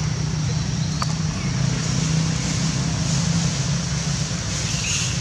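Steady outdoor background noise: a low rumble with an even hiss over it, with a faint click about a second in.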